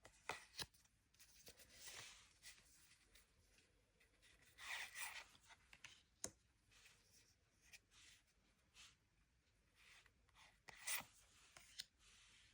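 Pokémon cards and their packaging being handled up close: faint rustling and scraping with light taps and clicks. There are louder rustles about five seconds in and again about eleven seconds in.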